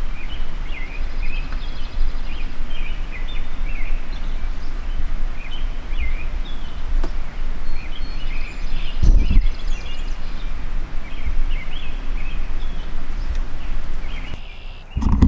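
Small birds chirping and calling, many short notes over and over, above a steady low rumble, with a dull thump about nine seconds in.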